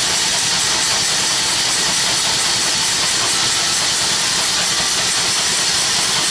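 18 HP single-cylinder double-acting steam engine running, with a loud, steady hiss of steam.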